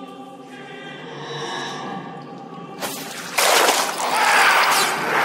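Dark film-score music holding a sustained choral chord. About three seconds in, a loud rushing, hissing burst of noise cuts in over it and lasts nearly three seconds.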